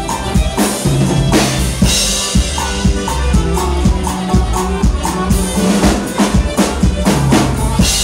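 Live norteño band playing a dance song: a drum kit keeps a steady beat over a bass line, with a few crashes.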